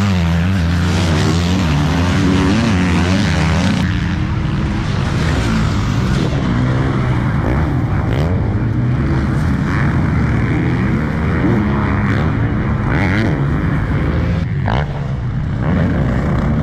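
Motocross dirt bike engines racing on the track, their pitch rising and falling as the riders work the throttle through jumps and turns.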